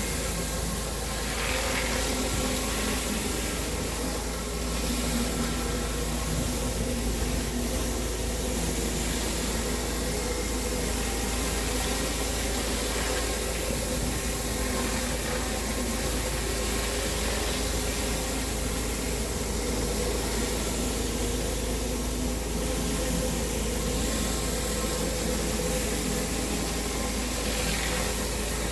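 Pressure washer running steadily on concrete: a constant engine hum under the hiss of high-pressure water spray.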